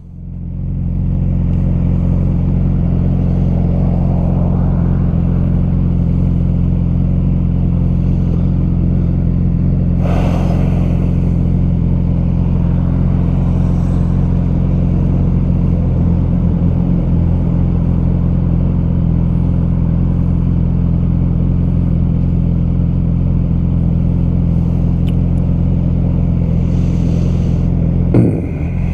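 Yamaha R6 sport bike's inline-four engine running at a steady pitch while riding, heard from the rider's helmet mic with wind and road noise. It picks up over the first second or so after a brief drop, and dips briefly again near the end.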